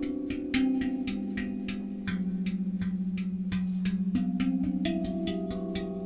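Lunadrum Chandra steel tongue drum in the Mystic scale, played with the fingers: quick, even taps several times a second over overlapping ringing notes, the held pitches shifting a few times.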